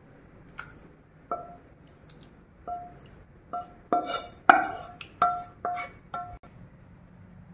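A non-stick pan and wooden spatula knocking against a glass bowl as curry is scraped out of the pan: about ten sharp clinks spread over several seconds, each with a short ring, the busiest run about four to five seconds in.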